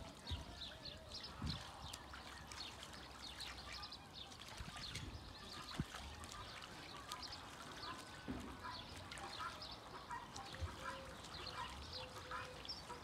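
Ducks bathing in a shallow muddy puddle: water splashing, sloshing and dripping continuously as they dip and flap, with a few soft duck calls now and then.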